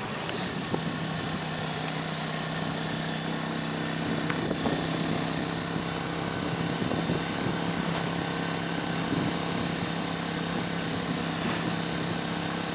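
Small motorcycle engine running at a steady pitch while cruising with several riders aboard, with rushing wind and road noise.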